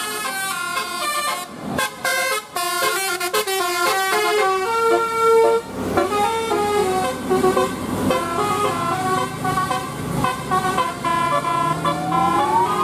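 Telolet multi-tone bus horns playing a quick tune of short, stepped notes, one after another. Near the end a rising, siren-like wail begins.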